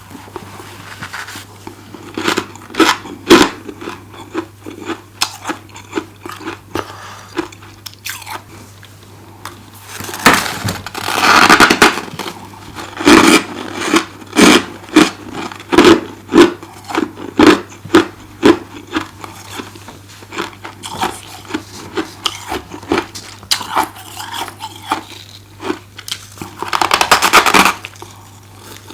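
Deep-freezer frost being bitten and chewed close to the microphone: many sharp, uneven crunches, with two longer stretches of dense crunching, one about ten seconds in and one near the end. A steady low hum runs underneath.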